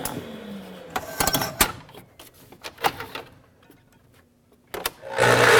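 A miter saw's blade winding down after a cut, then a few sharp clicks and knocks as the saw and workpiece are handled. Near the end the motor starts, its whine rising quickly in pitch as the blade spins up.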